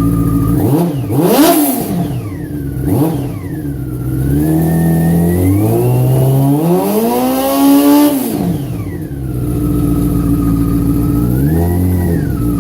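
2004 Yamaha R6's inline-four engine idling and being revved: quick throttle blips about a second in and again at three seconds, a longer rev that climbs from about four and a half seconds, peaks near eight and drops back to idle, then a small blip near the end.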